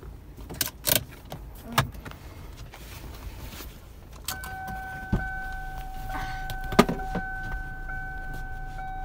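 Clicks and knocks of someone moving about in a stopped car. About four seconds in, a steady electronic warning tone from the car starts and keeps sounding, with a dull thump and a sharp click partway through.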